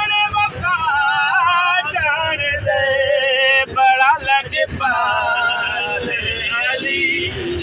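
A man singing in long held notes with a wavering, ornamented pitch, over the low rumble of the bus.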